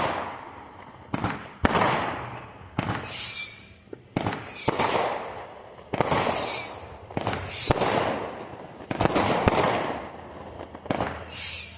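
Fireworks going off in quick succession: a sharp bang every second or so, each followed by a rumble that dies away, with high, wavering whistles rising between several of the bangs.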